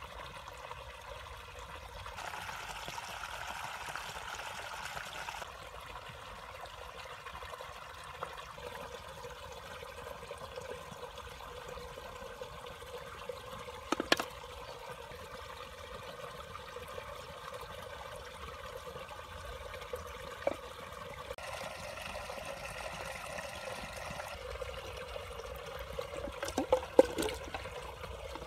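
Water trickling and pouring steadily into a fish-trap pit through its pipe opening. There is a sharp plop about halfway through as a small plastic toy fish drops into the water, and a few more quick splashes near the end.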